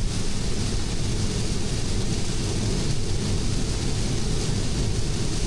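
Steady road noise inside a 2020 Tesla Model 3 driving at highway speed on a rain-soaked road: tyres on wet asphalt and rain spray. The car has no engine sound, so the noise is a deep rumble with an even hiss over it.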